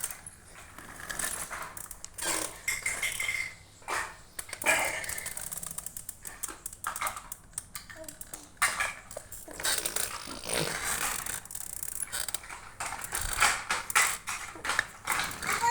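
A baby making intermittent motorbike-imitating mouth noises: irregular clicky, rattling lip and tongue sounds with a few brief high squeaks.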